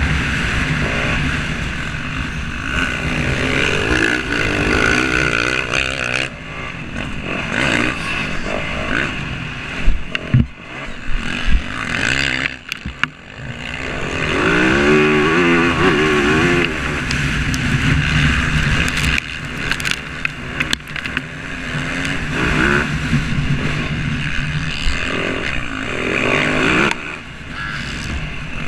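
Motocross bike engine running hard, its pitch rising and falling as it revs, with one clear rev climbing and dropping about fourteen to sixteen seconds in. A few sharp knocks sound between about ten and twelve seconds in.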